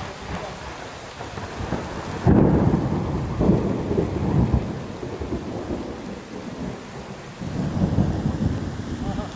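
Heavy rain pouring down on a flooded street, with a sudden loud rumble of thunder starting about two seconds in and a second rumble near the end.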